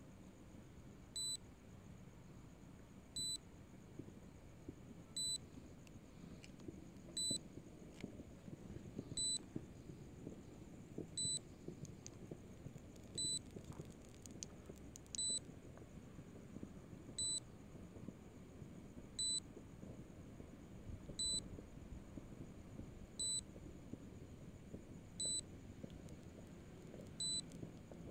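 Short electronic warning beep from the drone's controller app, repeating evenly about once every two seconds, over faint low background noise: the alert sounding while the drone flies back in return-to-home mode.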